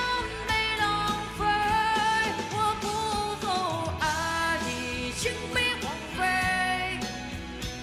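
A woman singing a Chinese pop ballad into a handheld microphone over a backing track.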